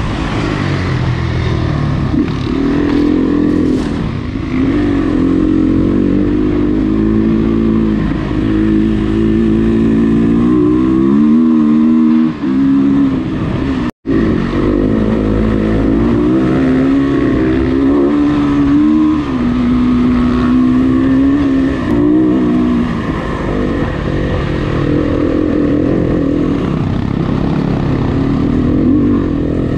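Dirt bike's engine heard from on board, its pitch rising and falling as the throttle opens and closes. The sound cuts out for an instant about 14 seconds in.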